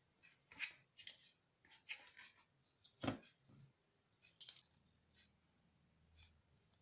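Faint, scattered clicks and scrapes of wires and small parts being handled, about eight short sounds, the loudest a little after three seconds in.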